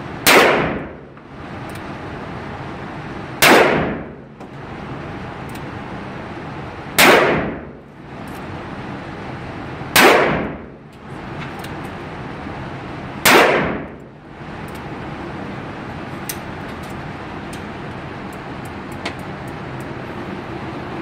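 Five single shots from a Ruger New Model Super Blackhawk .44 Magnum revolver with a ported 10.5-inch barrel, about three to three and a half seconds apart. Each shot rings out with a reverberating tail in an indoor range. A few light clicks over a steady background hum follow after the last shot.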